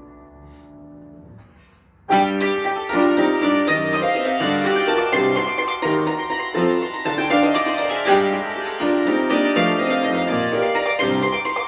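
Cimbalom playing: a held chord rings and dies away, then about two seconds in a loud passage of rapid struck notes begins and carries on.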